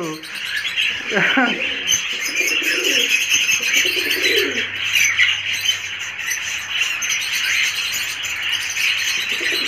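Masakali fantail pigeons cooing in low murmurs during their courtship display, loudest a few seconds in. Under them runs a constant high chirping chatter of small caged birds.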